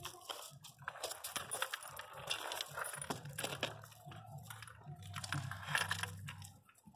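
Crushed-stone gravel crunching and shifting in irregular crackles under a Miniature Pinscher's paws and nose as she digs a nest in labour, over a steady low hum.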